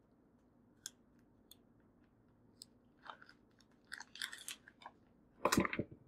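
Plastic wrapper of an IV start kit crinkling as it is opened and handled in gloved hands: quiet scattered crackles, a denser stretch about four seconds in and a louder rustle shortly before the end.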